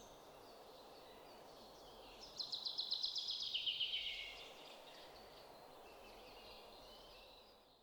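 Faint background noise with a bird's rapid trill of quick repeated high notes, falling in pitch and lasting about two seconds, starting a couple of seconds in.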